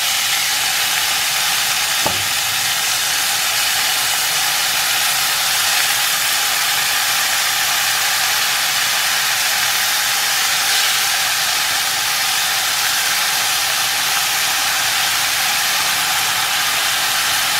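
Chicken pieces sizzling steadily in sugar browned to a smoking caramel in a hot aluminium pot, the browning step of a Dominican pollo guisado. A single sharp knock about two seconds in.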